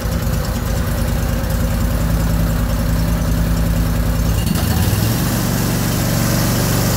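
Freshly rebuilt Kohler Command CH670 22 HP V-twin engine running on a Cub Cadet GT2550 garden tractor. Its note changes abruptly about four and a half seconds in as the throttle lever is moved, with the upper noise getting louder. The throttle is responding properly.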